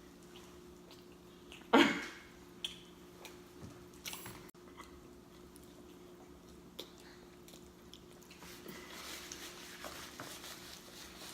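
Close-miked chewing and lip-smacking of someone eating, with scattered wet clicks and one sharp, loud smack about two seconds in, and a busier run of chewing noise near the end.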